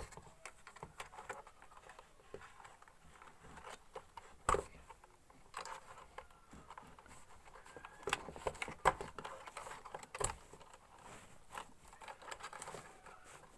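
Small clicks and scrapes of hands working inside an opened Bluetooth speaker, pulling its wires off the circuit board one at a time. One sharper click about four and a half seconds in, and a run of clicks between about eight and ten seconds.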